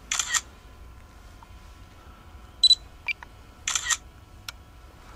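Camera-shutter sound from the drone control app on a smartphone, heard twice: once just after the start and once about a second after a short high beep midway through, with a few small clicks in between. It signals photos being taken with the DJI Mavic Mini's camera.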